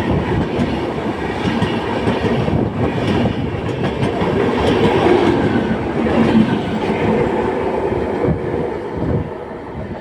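Indian Railways train pulling out of the station, its coaches rolling past on the rails as a loud, steady noise with faint irregular knocks, easing a little near the end.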